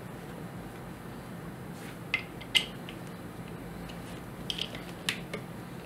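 A handful of small metallic clicks and taps as steel parts on a ball vise are handled and adjusted with an Allen key, two about two seconds in and a few more near the end, over a steady low hum.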